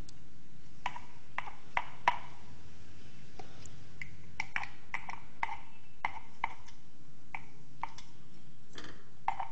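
A metal spoon tapping and knocking against a container and pan as crumbled paneer is spooned into the pan: a string of irregular light clicks, roughly two a second, loudest about two seconds in.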